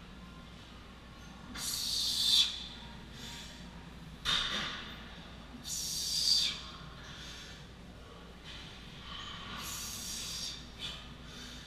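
A man breathing hard under a 225 lb barbell back squat: a loud, hissing breath forced out with the reps, about every couple of seconds, showing heavy strain.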